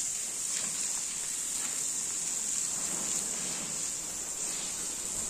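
Water from garden hoses spraying onto a wet concrete barn floor, a steady hiss, with a few faint strokes of a broom scrubbing the floor.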